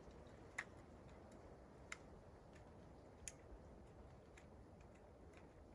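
Near silence broken by a few faint, sharp clicks and light taps, three of them clearer, spaced a second or more apart: small metal and wood handling noises while the flintlock rifle is loaded.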